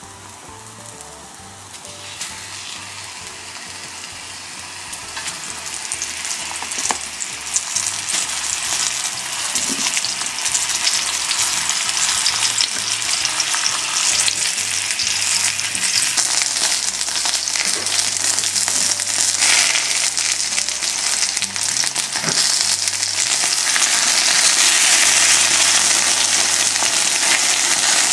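Potato-starch-dusted shiitake mushrooms sizzling in oil in a frying pan. The sizzle grows steadily louder as more caps go in and the pan heats up, with a few light clicks of chopsticks against the pan.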